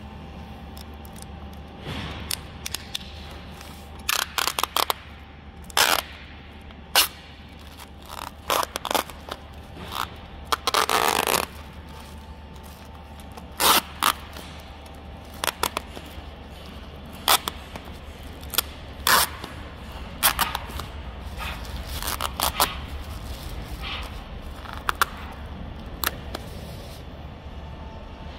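Clear plastic skin-pack film being peeled by hand off a plastic ready-meal tray: irregular crackles and ripping rustles, the longest about eleven seconds in, over a steady low hum.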